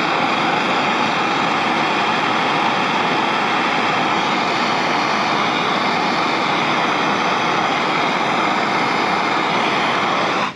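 Propane torch burning steadily, a loud, even rushing noise of the flame, which cuts off suddenly at the very end.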